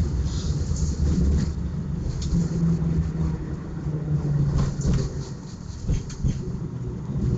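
Tram running along its track: a steady low rumble of wheels on rails with a motor hum that rises into a clearer tone mid-way, and scattered short clicks and knocks.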